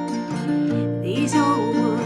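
Background music with acoustic guitar, and a singing voice with vibrato coming in a little past the middle.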